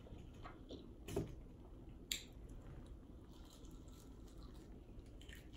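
Faint eating sounds: a chicken wing being bitten and chewed, with a couple of short soft clicks in the first two seconds.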